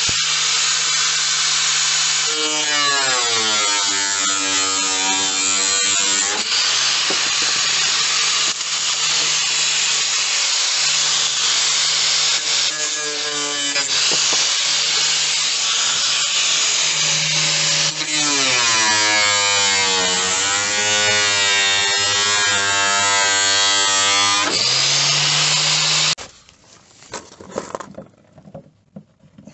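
Electric angle grinder with a thin cutting disc cutting out rusted sill steel, a loud steady whine. The pitch sags several times as the disc bites into the metal and climbs back as it frees. It stops about twenty-six seconds in.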